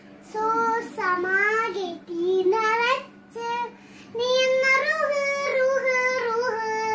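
A young girl singing solo with no accompaniment, in short phrases and then one long, wavering held note over the last few seconds.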